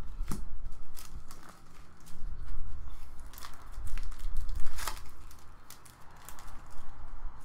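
A foil Upper Deck Champ's hockey card pack wrapper crinkling and tearing as it is ripped open by hand, with trading cards being flipped. The sound is a run of irregular crackles and clicks with soft handling knocks.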